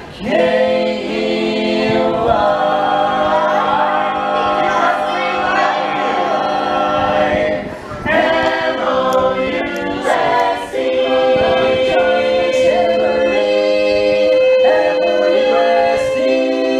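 A group of men and women singing a cappella in close barbershop harmony, holding long chords, with brief breaks about eight and eleven seconds in.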